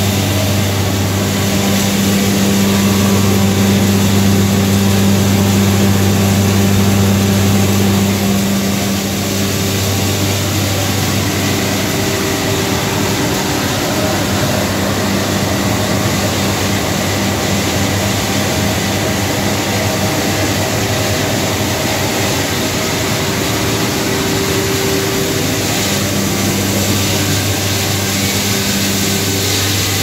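Plastic washing and recycling line running: a steady electric motor hum under a loud, even rush of air from the centrifugal blower and its conveying duct.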